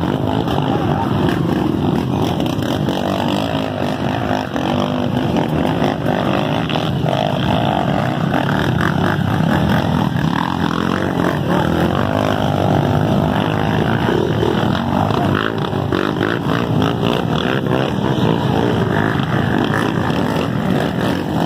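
Off-road dirt bike engines revving hard, the pitch rising and falling, as the bikes plough through a flooded, muddy stream crossing with water splashing.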